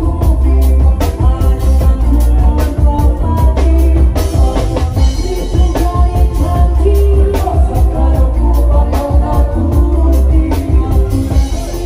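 Loud live band music over a big sound system: a singer on a microphone over a steady drum beat and deep bass.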